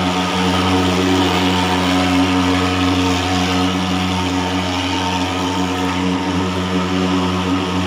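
Portable thermal fogging machine's pulse-jet engine running with a steady drone as it pumps out insecticide fog for mosquito control.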